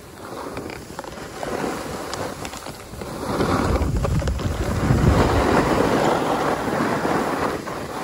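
Snowboard sliding and scraping over groomed snow, with wind rushing over the microphone. It grows louder about three seconds in and eases off near the end.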